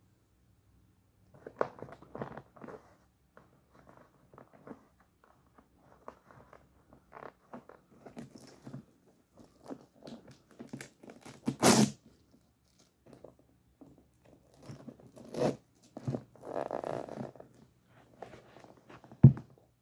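Ice hockey skate laces being pulled and tightened by hand: irregular rustles, scrapes and clicks of lace against the eyelets and boot. There is a louder sharp noise about halfway through and a heavy thump near the end.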